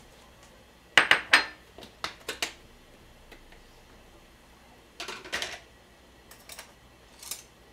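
Clicks and clatter of a snap-lock food container being opened: its side clasps unsnapped and the lid lifted off, with a small ceramic bowl set down on the stone counter. Several sharp knocks about a second in, another cluster about five seconds in, and lighter taps near the end.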